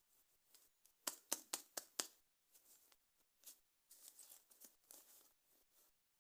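Close-up handling of toy packaging: a quick run of about six sharp plastic clicks about a second in, then soft crinkling and rustling.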